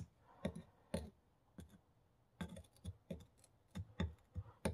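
About a dozen light, irregular clicks and taps of a steel knife blade against a sharpening stone in its plastic holder as the blade is set and lifted, with no grinding strokes.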